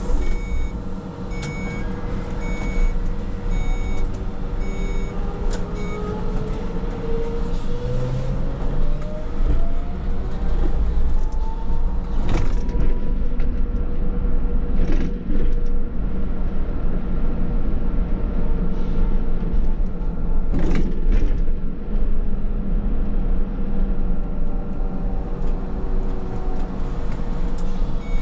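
Škoda 27Tr trolleybus under way, with a steady low running rumble and a constant electrical hum. About four seconds in, the electric traction drive gives a whine that climbs steadily in pitch for about nine seconds as the trolleybus accelerates. A few short knocks follow.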